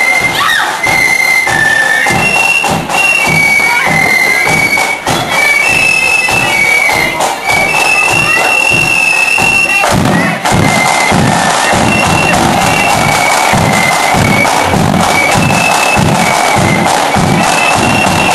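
Flute band playing: flutes carry a high melody over a regular drum beat. About ten seconds in the band comes in fuller and louder.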